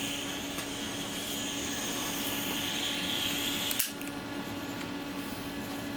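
Butane soldering iron hissing steadily as its gas burns, newly refuelled and heating up to working temperature. A short click about four seconds in.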